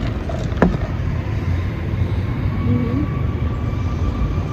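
Steady low rumble of outdoor traffic with a thin, steady high whine coming in after about a second. A short falling squeak sounds about half a second in.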